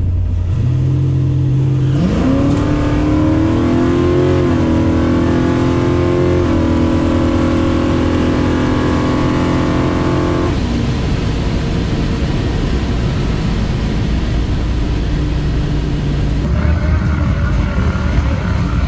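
1967 Camaro drag car's engine heard from inside the cabin on a drag pass. The revs climb sharply at the launch, step down slightly twice at the gear changes and hold until about ten seconds in, when the throttle comes off and a rough coasting rumble follows; a steady idle comes in near the end. The run was short-shifted: the team says the shifter was not fully in first, so the automatic made its 1-2 shift early, at about 5,900 rpm instead of 7,200.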